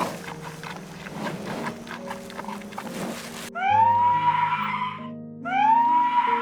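Background music with steady notes. Over it, a rough rustling noise for the first half, then a loud animal call that rises and holds its pitch, sounding twice about a second and a half apart.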